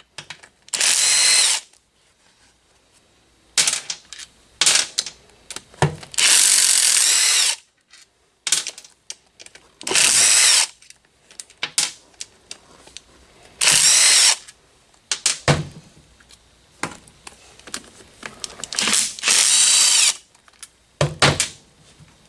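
A power drill-driver running in short bursts of about a second, five or so times, as it spins bolts out of the water pump housing on a Polaris Ranger 900 XP engine. Light clicks and knocks of metal parts come in between the bursts.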